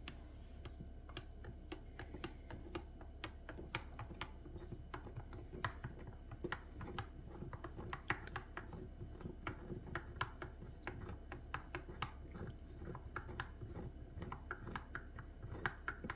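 A run of quick, irregular light clicks and taps, several a second, over a steady low hum.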